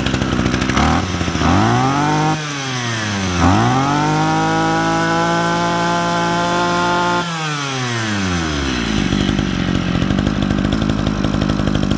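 Kawasaki TG24 brush cutter's 24cc two-stroke engine revving. It idles, is blipped up and dropped back about a second in, then is revved again and held at high speed for about four seconds before falling back to idle.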